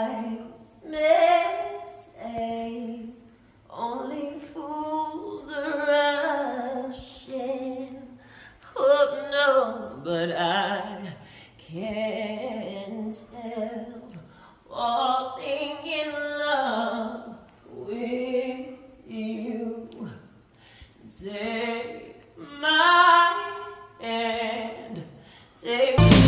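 A woman singing solo and unaccompanied, in a series of short phrases with brief breaths between them and a wavering vibrato on the held notes.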